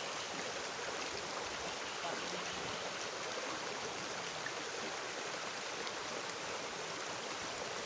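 Shallow, rocky river rushing steadily over and around boulders in riffles.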